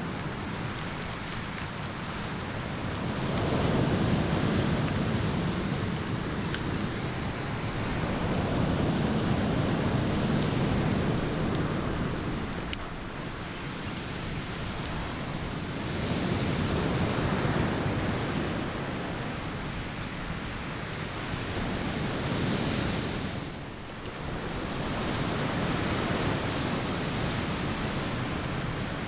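Ocean surf washing onto a beach, the waves swelling and falling back every several seconds, with some wind on the microphone.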